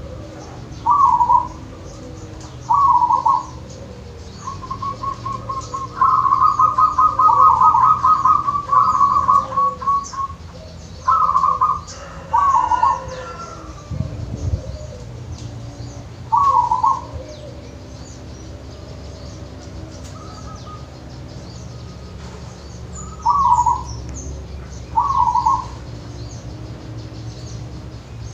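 Zebra dove (perkutut) cooing: short rolled coos repeated every few seconds, with a longer run of quick rippling notes a few seconds in. A low thump comes about halfway through.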